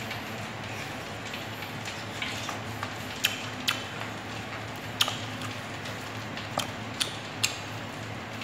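Kitchen scissors and metal tongs clicking as fried pork is cut in a plastic tub: about six sharp clicks from about three seconds in, over a low steady hum.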